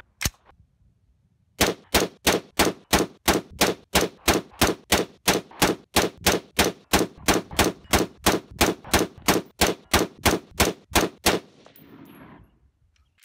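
About thirty shots from an AR-15 rifle with a 5.56 NATO Geissele barrel, spliced close together so they come evenly at about three a second, starting a little over a second in and stopping shortly before the end.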